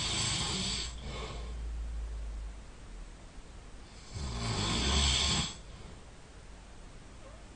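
A sleeping person snoring loudly. A snore is ending as the sound begins, and another snore of about a second and a half comes about four seconds in. Each snore is a low rattling buzz under a breathy hiss, with quieter breathing in between.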